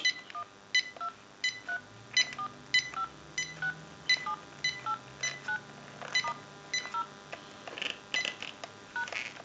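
Touch-tone (DTMF) beeps from the keypad of a General Electric 6.0 cordless telephone handset as its keys are pressed one after another, about two short beeps a second. The digits are being dialed into a tone analyzer to check that each key sends its tone.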